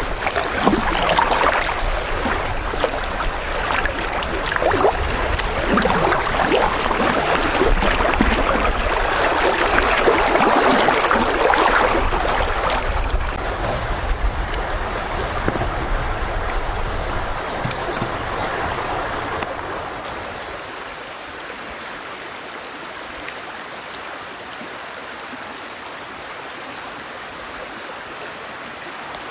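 Moving water splashing and rushing, with wind buffeting the microphone. About twenty seconds in, it changes to a quieter, steady rush of water.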